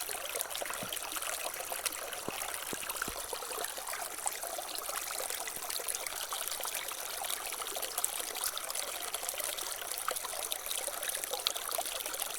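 Water trickling and splashing steadily, with a constant hiss full of small drips and splashes.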